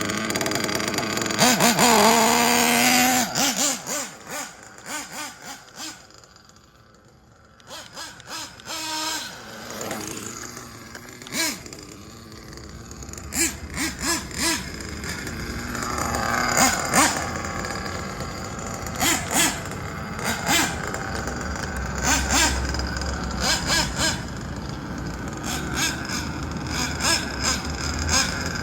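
Kyosho Inferno NEO ST 3.0 nitro RC truggy's small glow-fuel engine running and revving in bursts, with many sharp clicks and knocks. A loud revving burst comes about two seconds in, the sound drops away briefly around seven seconds, then the engine runs on steadily.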